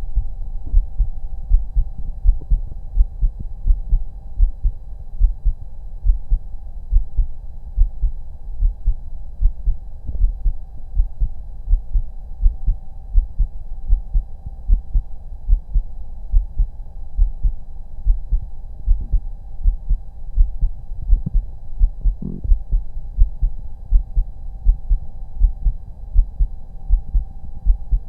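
A human heartbeat heard through a stethoscope: a steady, regular run of dull, low thumps, muffled with nothing above the low range. A faint steady hum runs beneath it.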